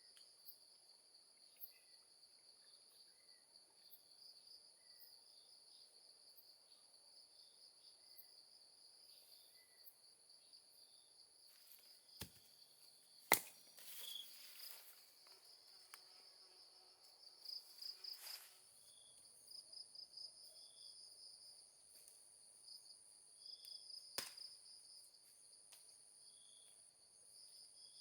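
Insects trilling steadily in a high, thin, pulsing chorus, with short higher chirps repeating every second or two. A few sharp knocks cut in around the middle, the loudest about halfway through, and another comes later.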